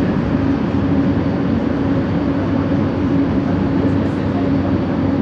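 Bombardier Innovia ART 200 light-metro car running past a station platform, heard from inside. Its linear induction motors give a steady, distorted hum over the rumble of the running gear.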